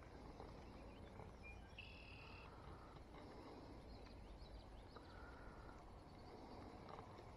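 Near silence: faint outdoor ambience with a few short, faint bird calls in the distance.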